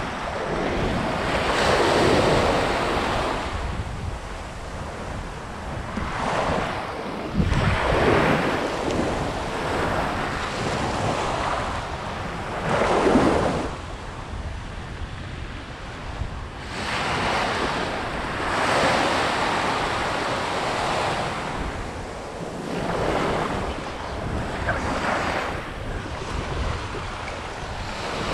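Small waves breaking and washing up the sand at the shoreline, swelling and ebbing every few seconds, with wind rumbling on the microphone.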